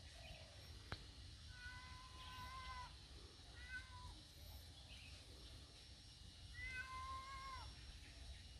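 A cat meowing faintly three times: two long, drawn-out meows with a shorter one between them.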